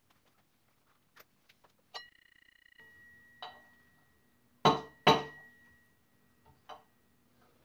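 Rubber mallet striking a steel drift held in a motorcycle wheel hub to drive a wheel bearing. First small clinks and a ringing metal clink as the drift is set in place, then a light tap. Two hard blows in quick succession about halfway through, with a metallic ring that lingers, and one more tap near the end.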